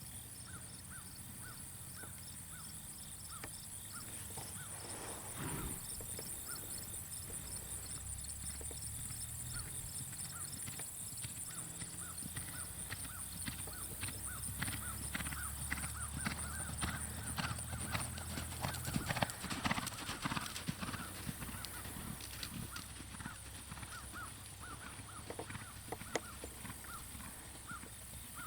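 Hoofbeats of an American Quarter Horse clip-clopping over the ground, growing louder and busier midway and easing off near the end.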